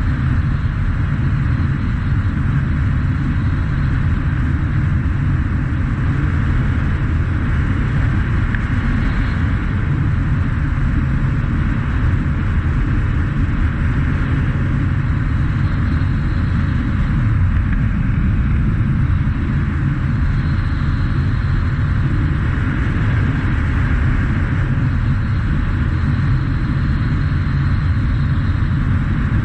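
Honda CT125 Trail motorcycle at a steady cruise: its single-cylinder engine running under heavy, unbroken wind rumble on the on-bike microphone.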